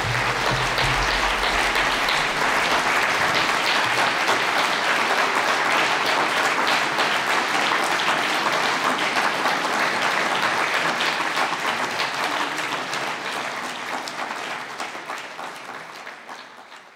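Audience applauding, a dense steady clapping that fades away over the last few seconds.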